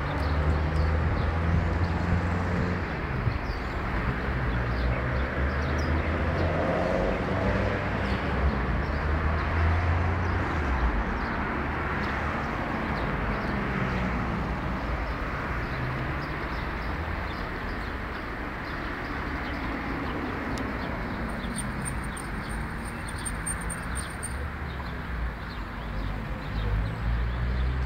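Outdoor ambience: birds chirping over a steady hiss and low rumble, with a thin high whistle lasting a few seconds about three-quarters of the way through.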